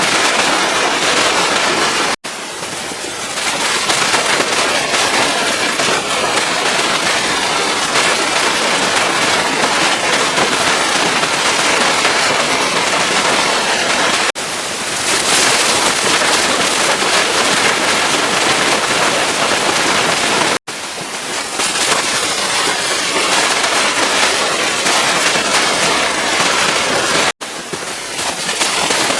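Pressure-washer water jet spraying against a vehicle's surfaces: a loud, steady hiss with crackling spatter. It cuts off for an instant four times and starts again.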